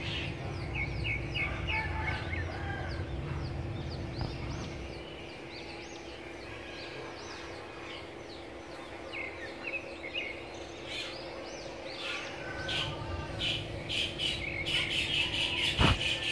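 Small birds chirping in quick, repeated high notes, most densely near the end, over a steady low hum. A single sharp knock comes just before the end.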